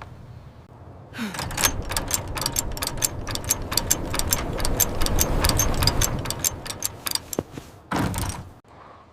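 A fast, irregular run of knocks and rattles, like a door or window frame shaking, over a low rumble. It starts about a second in and stops about eight seconds in after a last short burst.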